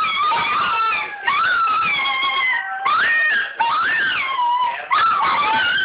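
Toy Fox Terrier howling: about five long, high, wavering howls, each rising then falling in pitch, with short breaks between.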